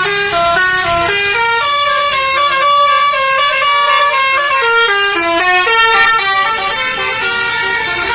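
Telolet basuri multi-tone bus air horn playing a fast tune, a quick run of short notes stepping up and down in pitch with barely a break.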